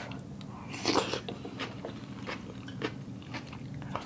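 A person eating hot pot close to the microphone. There is one loud bite about a second in, then short wet chewing clicks and smacks, with a faint steady low hum underneath.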